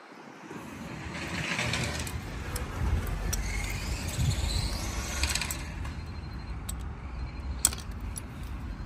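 Engines of 1/8-scale nitro RC cars running on the track, their note rising and falling as they pass, with a single sharp click near the end.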